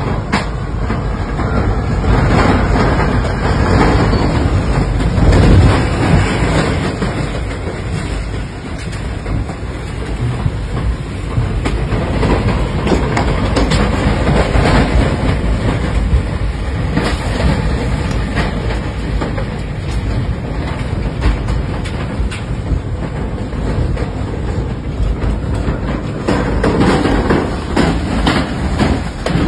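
Tornado winds passing close by: a loud, continuous rush of wind buffeting the microphone, heaviest in the low end, with scattered knocks of flying debris.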